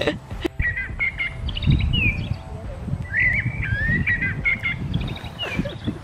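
Recorded song of a common blackbird played by a squeezed plush toy bird: a run of fluty, warbling whistled phrases starting about a second in and stopping near the end. Wind rumbles on the microphone underneath.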